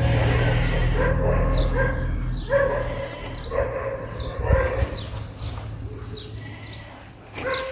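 A dog giving short, repeated calls about once a second, growing fainter toward the end.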